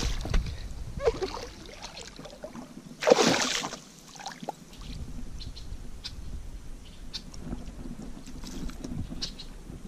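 Hooked largemouth bass thrashing and splashing at the water's surface beside a kayak as it is brought in and grabbed. The loudest splash comes about three seconds in, followed by quieter water sounds and light clicks.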